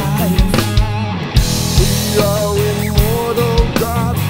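Rock music: an electric guitar plays a lead melody with bent and sliding notes over bass and regular drum beats.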